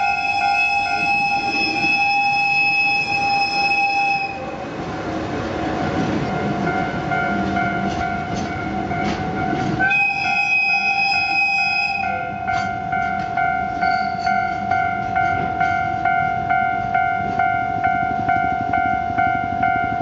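Diesel locomotive horn blowing a long steady chord that stops about four seconds in, then container wagons rolling and clattering over the crossing, with a second, shorter horn blast around the middle. The level-crossing warning bell rings in a steady ding-ding rhythm throughout, standing out once the horn stops.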